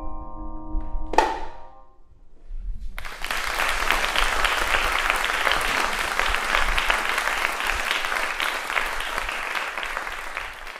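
Marimba and vibraphone ring on the final bars, closing with one last struck chord about a second in that rings out and fades. About three seconds in, audience applause begins and carries on, dense and steady.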